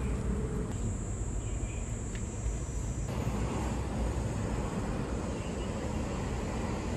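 Steady low outdoor rumble of traffic and wind on the microphone, with no distinct event standing out.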